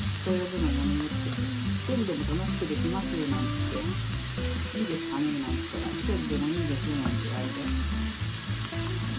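Pork belly slices and marinated chicken sizzling steadily on a hot electric tabletop grill plate. Background music with a low bass line plays underneath.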